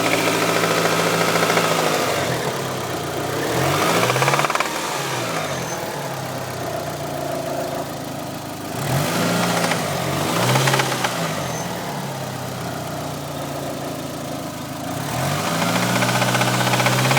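Talon's 4G63 inline-four engine running, its speed swinging up and back down twice and rising again near the end, with a knock that the owner suspects is rod knock.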